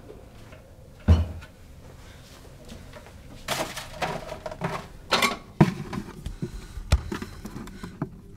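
Kitchen cupboard doors opened and shut and things shifted inside while someone rummages through the cabinets: a heavy thump about a second in, then short clatters and sharp knocks.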